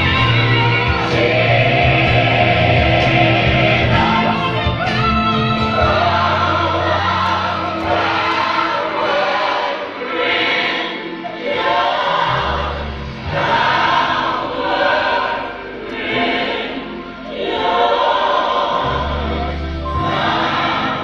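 Gospel music: a choir singing with band backing.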